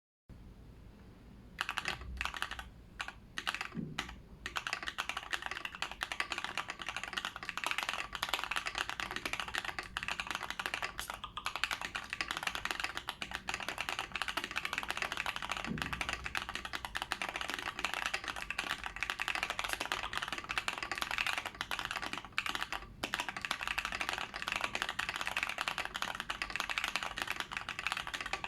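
KBD75 mechanical keyboard with lubed Azure Dragon switches, a brass plate, TX stabilizers, a tape mod and no case foam, being typed on. A few scattered keystrokes come first, then steady, fast typing from about four seconds in.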